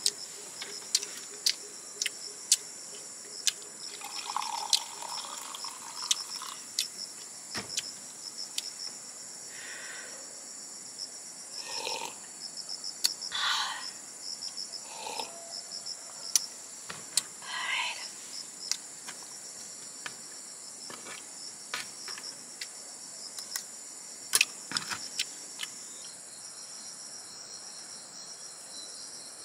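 Steady high-pitched drone of forest insects, with frequent light clicks and taps of chopsticks and utensils against the dishes, and a few short louder sounds in the middle; the clicking stops a few seconds before the end.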